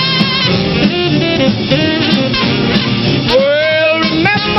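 Tenor saxophone solo over a 1950s rhythm-and-blues band, with drums, upright bass and piano keeping the beat.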